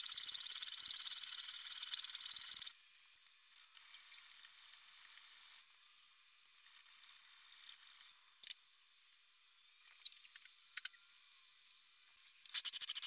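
Hand file rasping across the aluminium-alloy frame of a Beretta 92FS in quick, even strokes, shaving down the backstrap hump. The strokes stop after about two and a half seconds, leaving faint scraping and a few sharp clicks, then start again loudly near the end.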